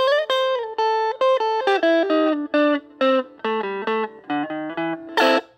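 Outro music: an electric guitar playing a melody of single notes, one note bent in pitch near the start, cutting off suddenly near the end.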